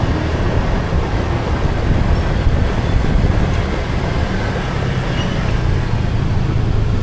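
Steady vehicle and road-traffic noise, a constant rumble heaviest in the low end with no pauses or distinct events.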